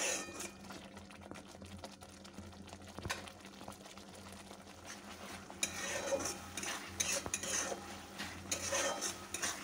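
A spatula stirring and scraping a thick tomato-spice masala frying in a kadai, over a soft sizzle. The masala is being fried down until its oil separates. The stirring is quieter at first, then from about halfway comes a run of repeated scraping strokes.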